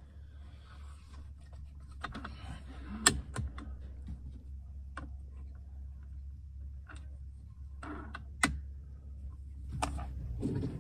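Handling clicks and clunks from a Benjamin Bulldog .457 air rifle as it is worked between shots. There are a handful of separate sharp clicks, the loudest about three seconds in and another about eight seconds in, with rustling of movement, all over a steady low rumble.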